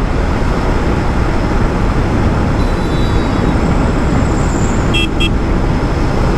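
Rush of wind and road noise at high speed on a Royal Enfield Interceptor 650, its parallel-twin engine running in fourth gear underneath. Two short high beeps come about five seconds in.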